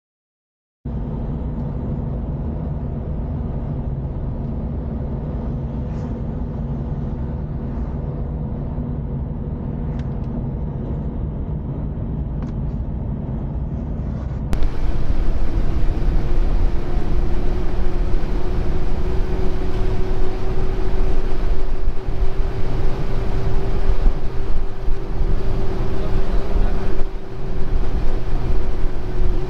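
Car cabin noise while driving: a steady low engine and road hum begins about a second in. About halfway through it cuts to a louder, hissier mix of road and wind noise with a steady drone.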